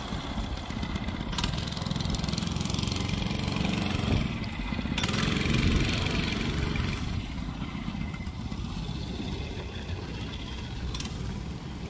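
Monster Moto 80cc mini bike's small single-cylinder four-stroke engine running as the bike is ridden along the street. It is loudest about halfway through, then fades as the bike moves away.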